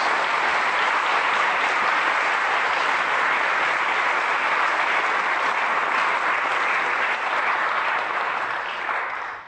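A large audience applauding, a dense steady clapping that dies away near the end.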